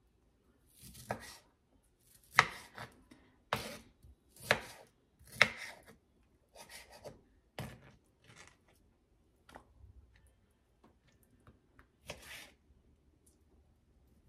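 Chef's knife cutting a slightly frozen raw chicken breast into cubes on a clear cutting board: a dozen or so uneven knife strikes against the board with short pauses between them, thinning out near the end.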